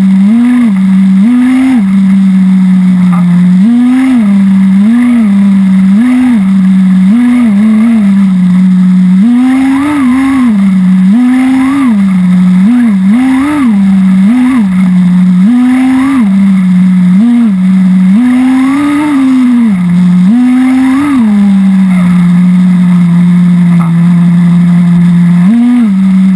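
VX-18 nitro engine of an HSP Warhead 1/10 buggy, a small two-stroke glow engine, running loud close to the camera and blipped on the throttle over and over: the note jumps up briefly and drops back about once a second, then holds steady for a few seconds before one last blip near the end. The engine is near the end of its first litre of 10% nitro fuel, still in break-in.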